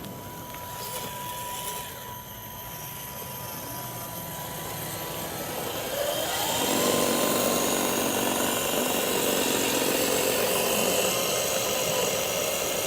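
Electric motor and metal-gear gearbox of a WPL B36 RC truck whining as it drives. The whine climbs in pitch and gets louder about six seconds in as the truck speeds up, then runs steadily.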